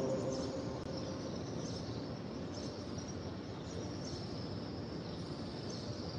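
Quiet, steady background hush of a large open-air mosque courtyard, with the reverberant tail of the imam's chanted recitation over the loudspeakers dying away in the first second. Faint high chirps come and go.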